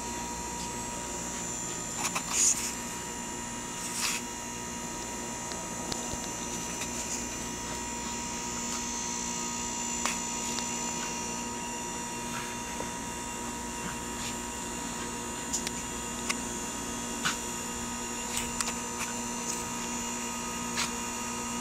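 Steady electrical hum and hiss, with a few faint short clicks scattered through and one louder brief sound about two and a half seconds in.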